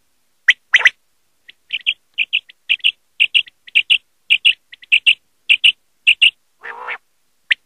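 Common quail calling. A sharp, liquid song note comes about half a second in, then a long run of quicker paired high notes at about two pairs a second. Near the end there is a short lower, rougher note, then a loud song note.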